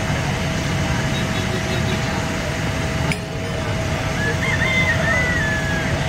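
A JCB's diesel engine runs steadily under outdoor noise. About three seconds in there is a sudden break, and a short high wavering tone follows near the end.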